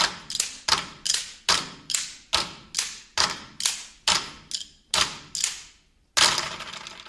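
A drum beaten in a steady beat of about two and a half strikes a second, each strike sharp and fading fast, with one louder, longer-ringing strike about six seconds in.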